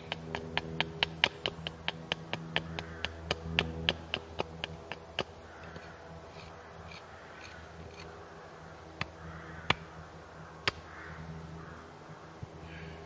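A hatchet held short by its head chopping a small piece of wood on a chopping block in quick light strokes, about four a second, shaping the point of a wooden splitting wedge. The strokes stop about five seconds in, followed a few seconds later by three single sharp knocks.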